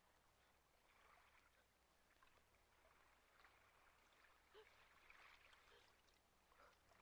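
Near silence, with faint irregular splashing and lapping of sea water as two dogs swim.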